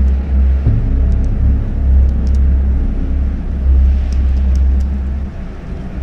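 A low, steady rumble, with a few faint high ticks over it.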